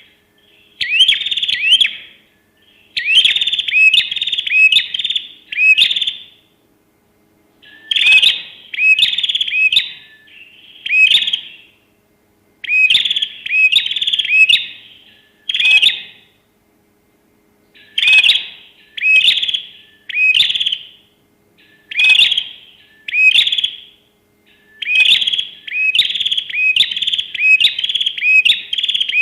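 A songbird singing in repeated bursts of short rising whistled notes, several notes to a burst, with brief pauses between bursts.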